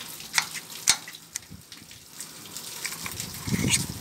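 Sharp metallic clicks and light scraping as a pump's mechanical seal spring and seal parts are handled and seated on the shaft, over a steady background hiss.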